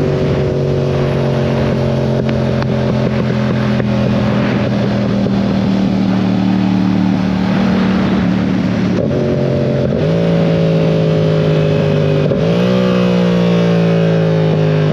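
Yamaha R7's 689 cc parallel-twin engine running on the move, its revs falling slowly. The revs jump up suddenly about nine seconds in and again about twelve seconds in, then fall off again, with wind rush underneath.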